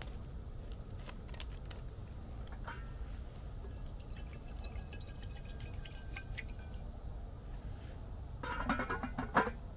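Rain dripping, heard as scattered sharp ticks over a steady low rush, with a brief louder burst of sound about a second before the end.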